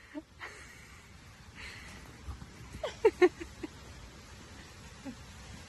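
Puppy making a few short whines and grunts, with a quick run of them about three seconds in, over a steady background hiss.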